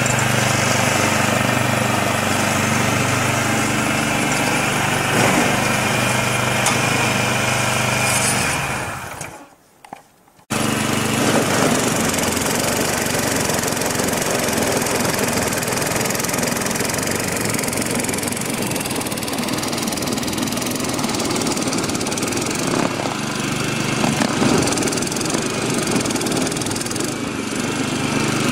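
Snow blower attachment on a MARKO walk-behind tiller, its small engine running steadily while it clears snow. The sound cuts out for about a second about a third of the way in, then returns with more hiss.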